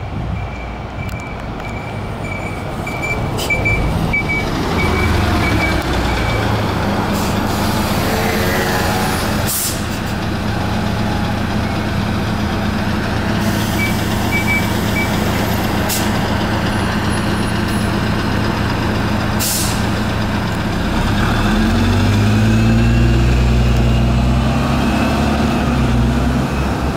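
Isuzu Erga Type-B non-step city bus pulling in and standing at a stop: runs of short high beeps, several sharp air-brake hisses and a steady engine idle. About three-quarters through, the engine note rises as the bus accelerates away.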